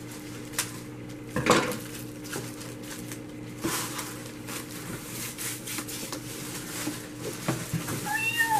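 Paper wrapping rustling and crinkling as a rolled purse strap is cut free with scissors and unwrapped, with scattered small clicks and clinks; the loudest comes about a second and a half in.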